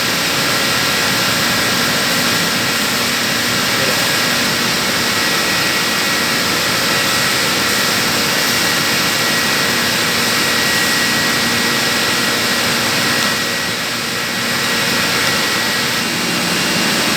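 Steady, unbroken drone of running chiller-plant machinery (compressors, motors and fans), a hiss spread high and low with a faint steady whine in it.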